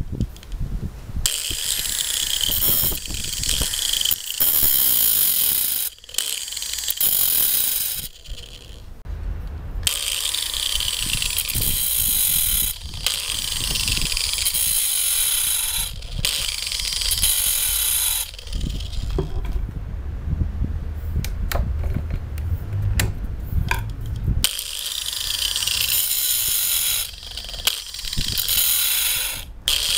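Angle grinder with a thin abrasive disc grinding the cutters of a chainsaw chain on its bar. It comes in repeated bursts of harsh metal grinding, a second to several seconds each, with short breaks between them as the disc moves from tooth to tooth.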